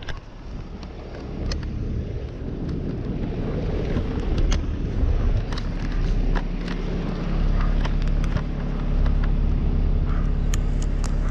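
Fire engine's diesel engine idling close by: a steady low rumble that builds over the first few seconds and settles into an even hum. Scattered clicks and scrapes of gear rubbing against the body-worn camera come through over it.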